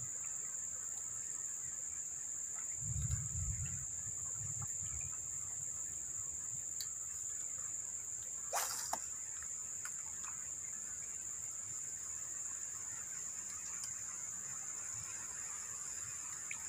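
Steady high-pitched drone of insects, one unbroken tone, with a brief low rumble of wind or handling about three seconds in and a short sharp swish about eight and a half seconds in.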